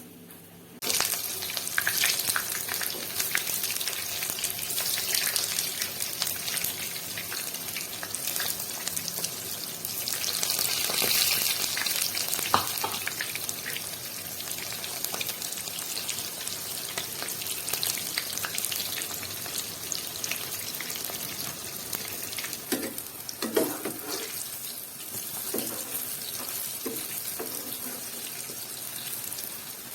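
Food frying in hot oil: a loud sizzle starts suddenly about a second in as the food goes into the pan, then carries on as steady crackling.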